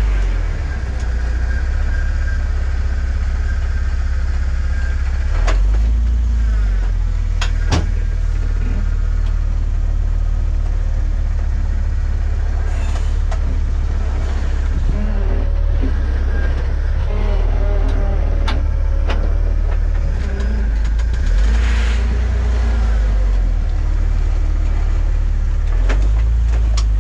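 Off-road vehicle crawling slowly over slickrock: a steady low engine rumble, with a few sharp knocks and clicks.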